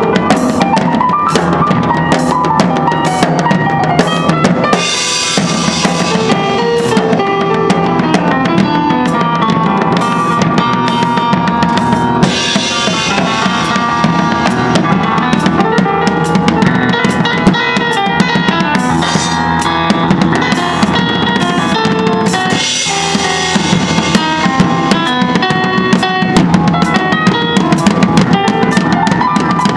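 Instrumental duo of drum kit and electronic keyboard playing a lively groove. Kick and snare drive the beat under a keyboard melody, with cymbal crashes about five, twelve and twenty-three seconds in.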